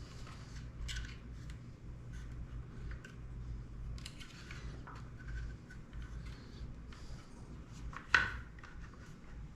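Small hand tools and drone parts being handled on a workbench: scattered light clicks and rustles over a steady low hum, with one sharp snip-like click about eight seconds in that is the loudest sound.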